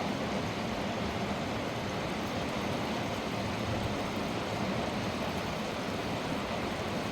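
Mountain river rushing over rocks: a steady, unbroken rush of water.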